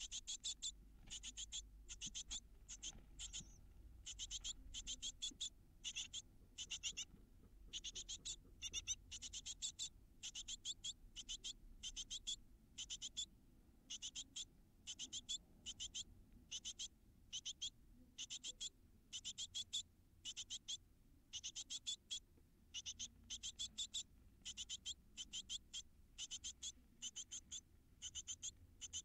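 Great tit nestlings calling almost nonstop inside a wooden nest box: short, high, scratchy calls in quick runs of several a second, broken by brief pauses.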